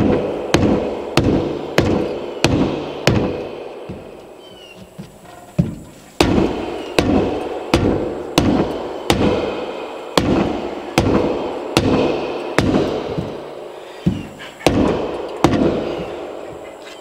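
Mallet blows pounding a 4-inch PVC pipe into a tight rubber Uniseal adapter in the wall of a plastic water tank, at a steady pace of a little under two strikes a second, each blow ringing briefly. The strikes stop for about three seconds after the first few seconds, then resume.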